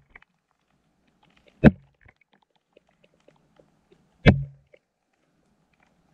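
Two sharp knocks about two and a half seconds apart, each with a brief low thud trailing after it, picked up through an underwater camera housing as fish nose around it. Faint small ticks sound in between.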